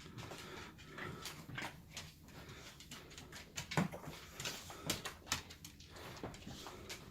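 A dog moving about close by: scattered light clicks, and a brief whimper that falls in pitch about four seconds in.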